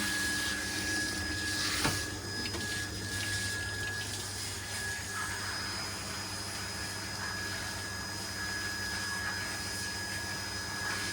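Water spraying steadily from a grooming-bath shower head onto a wet dog, over a constant low hum, with one sharp knock about two seconds in.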